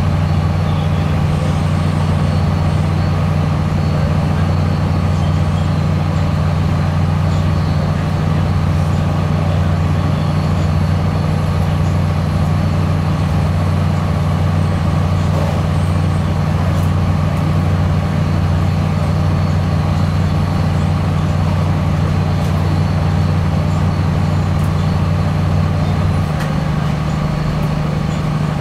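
Inside a CAF Class 3000 diesel multiple unit under way: a loud, steady drone from the running train and its air conditioning, with a low hum under it. The lowest part of the hum drops away near the end.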